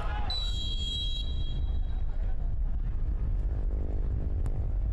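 A steady low rumble with a short, high, sharp-onset whistle blast about a third of a second in, lasting about a second, like a referee's pea whistle on a football pitch.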